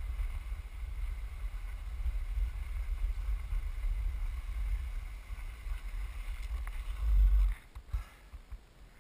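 Wind buffeting a moving action camera's microphone during a downhill run on snow, a steady rumble with a faint hiss of snow under the rider. It swells to its loudest about seven seconds in, then drops away suddenly.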